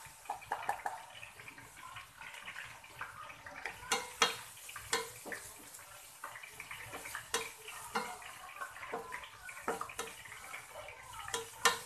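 Chopped onion, ginger and garlic sizzling in oil in a stainless steel pan, with a wooden spatula scraping and tapping against the pan at irregular moments as the mixture is stirred.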